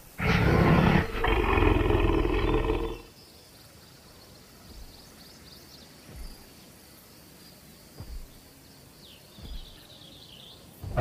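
Dinosaur roar sound effect: a deep, loud roar in two parts lasting about three seconds, then quieter background with a few soft thumps.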